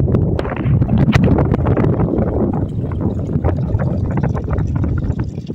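Wind buffeting the microphone: a loud, uneven low rumble that rises and falls, with a few small knocks.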